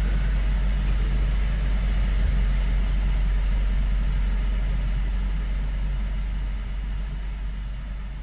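Car interior rumble from engine and road as the car moves off, a steady low drone that fades out over the last few seconds.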